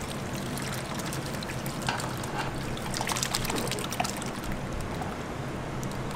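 Thick, chunky tomato sauce poured from a pan onto roast beef in a stainless steel tray, landing in many small wet splats and plops that come thickest from about two to four seconds in. A steady low hum runs underneath.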